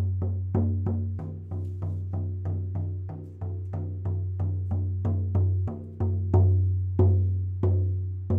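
18-inch Hawk Spirit shaman frame drum struck with its beater in a steady beat of about three strokes a second, each stroke ringing with a deep boom that carries into the next. Two harder strokes about six and seven seconds in ring out longer.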